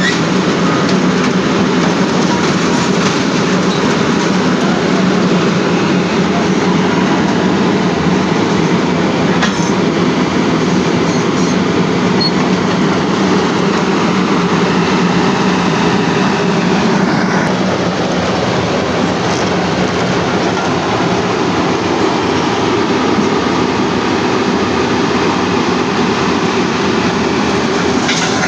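Heavy machinery running with a loud, steady rumble and clatter, easing a little about halfway through.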